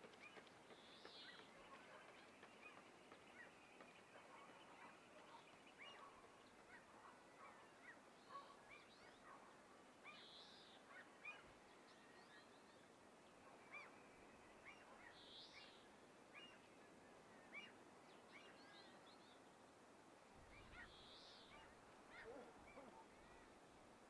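Faint birdsong: many short chirps throughout, with four louder high calls spaced several seconds apart.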